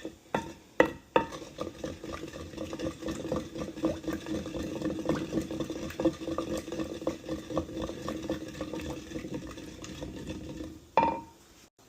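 Mashed chili sauce being stirred and mixed in its vessel: a steady run of quick scraping, clicking strokes, with a sharper knock near the end.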